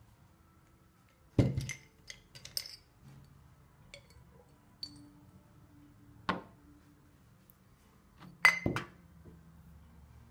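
A handful of sharp clinks and knocks of hard objects set down and moved on a tabletop: a ceramic pen pot and a glass dropper bottle. The loudest clink comes a little over a second in, and there is a double knock near the end.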